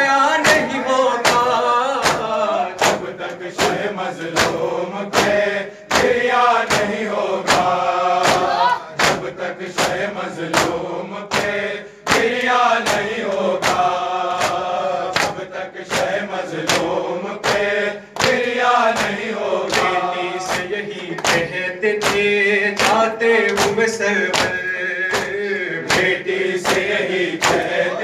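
Male voices chanting a Shia noha into a microphone, with the crowd joining in chorus. Under it runs a steady beat of open-handed chest strikes (matam), about one and a half a second.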